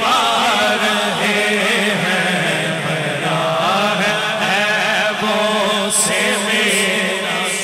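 Naat recitation: a man's voice singing a long, wavering ornamented line without accompaniment, over a steady drone of backing voices.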